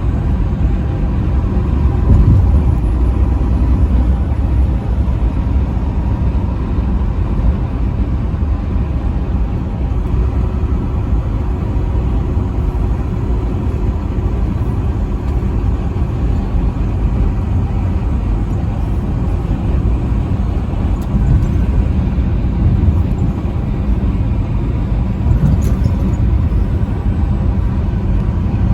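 Steady low road and engine rumble of a truck driving at highway speed, with no horn blast.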